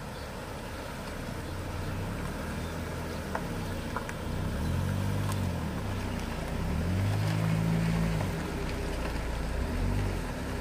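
Minivan engine running as the van drives out of a shallow river ford and past at close range. Its note rises and falls and is loudest as it passes, over the steady rush of water flowing across the ford.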